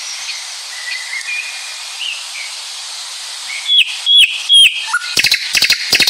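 Birdsong over a steady hiss. Faint thin whistles come first, then three loud, clear whistled notes past the middle, each dropping at its end. A fast rattle of clicks follows near the end.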